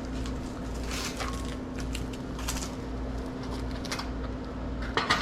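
Scattered light clicks and clinks of small objects being handled, over a steady hum, with a pair of sharper clicks near the end.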